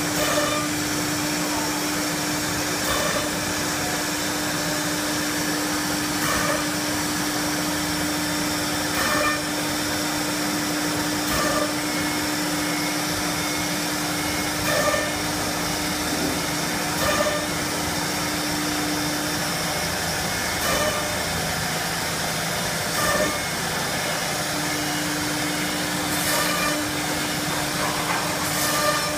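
Four-spindle wood CNC router (SA-1325W) running and cutting a wood board sheet: a steady machine noise with a held hum that drops out for a few seconds past the middle, and short louder swells every two to three seconds.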